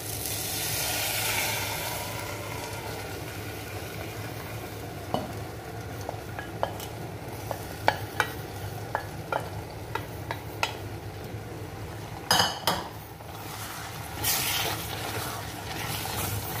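Half-cooked chicken and its liquid poured into a clay pot of hot frying masala, sizzling loudly as it goes in. Then a spatula scrapes and taps the steel pot clean, a string of sharp clicks over the sizzle with a couple of louder knocks, and the sizzle swells again near the end.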